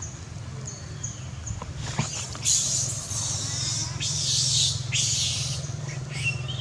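Baby long-tailed macaque screaming: three shrill, high-pitched bursts in the middle, followed by a short high call near the end.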